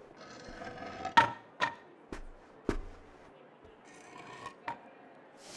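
Foley of wood and footfalls: a string of sharp wooden knocks, the loudest about a second in, with scraping, creaking rubs between them.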